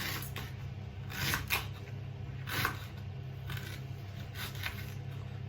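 A kitchen knife slicing fresh ginger root: a few separate sharp cuts at uneven intervals, roughly a second apart, over a steady low hum.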